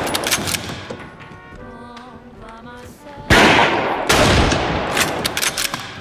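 Gunfire in a film shootout: the tail of a volley of shots dies away in the first second. Just past halfway a second volley of several shots from a scoped rifle and other guns echoes for about two seconds. Background score music plays between the volleys.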